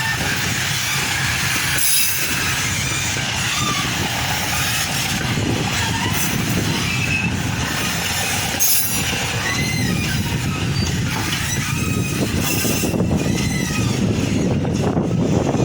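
Freight train rolling past, its wagons' wheels squealing on the rails with a steady rumble and a few sharp knocks.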